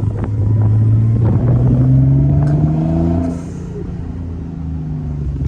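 Twin-turbocharged Infiniti G35 V6 pulling under acceleration on low boost (about 5 psi): its note rises for about two seconds, then drops away about three seconds in and settles to a lower steady drone.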